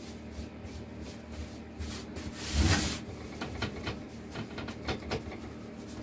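Danish oil being rubbed into a carved apple-wood base with a hand-held applicator: a run of short scrubbing strokes on the wood, with one louder, longer scrub about halfway through.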